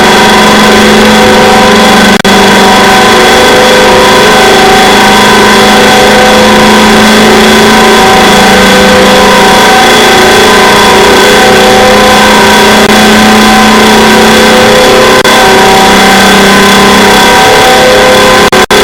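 Deliberately overdriven electronic meme sound effects played at maximum volume and clipping: a steady, harsh, distorted drone of stacked tones. It breaks off briefly about two seconds in and again just before the end.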